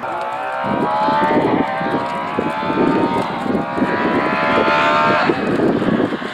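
Škoda Fabia S2000 rally car's engine pulling hard, its pitch climbing slowly for about four and a half seconds, then cutting off suddenly as the driver lifts, with wind buffeting the microphone.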